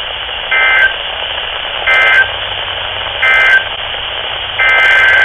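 EAS SAME digital data bursts, a warbling two-tone screech, over a weather radio receiver's steady hiss: three short bursts about 1.4 s apart, the end-of-message code closing the high wind warning, then a longer burst starting near the end.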